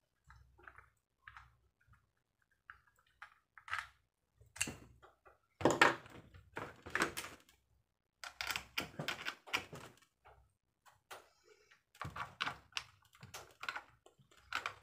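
Hard plastic clicking and knocking as an action camera in its clear waterproof housing is handled and fitted onto a bicycle helmet mount. The clicks come irregularly in clusters with short pauses between them.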